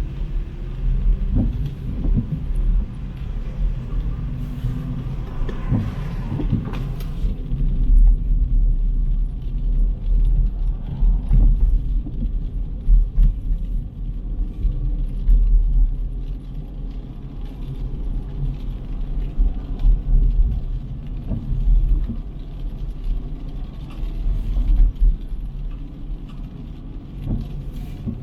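Street traffic: a low, uneven rumble of cars passing.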